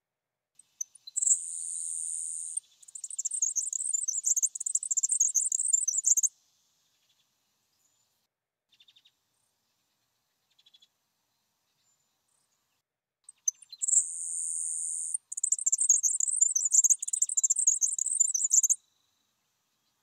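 Grasshopper sparrow song, heard twice about twelve seconds apart: a few faint ticks, then a high, thin, insect-like buzz held steady and breaking into a longer stuttering buzz, each song lasting about five seconds.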